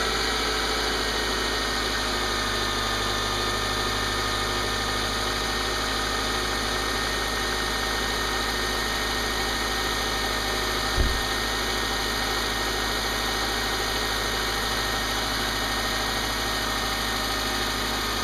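Subaru flat-four engine idling steadily, just after a cold start with its recrimped cylinder 2 spark plug wire in place. A single brief thump comes about 11 seconds in.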